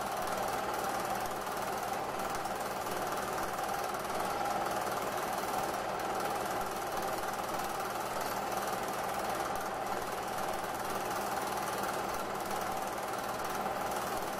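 A film projector running steadily: an even mechanical clatter over a low hum.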